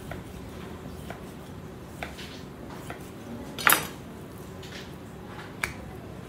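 Kitchen clatter: a few light knocks about a second apart, one loud metallic clink with a short ring about three and a half seconds in, and another sharp click near the end, over a steady low hum.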